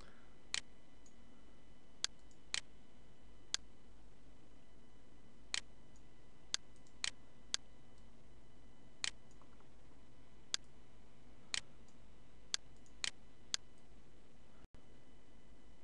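Computer mouse buttons clicking: about fifteen single sharp clicks at an uneven pace, some in quick pairs, over a steady faint hum.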